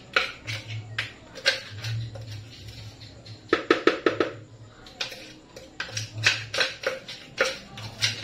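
Metal spoon knocking and scraping against a blender jar as a sticky nut-and-chocolate mixture is dug out, with a quick run of knocks about three and a half seconds in, over background music with a beat.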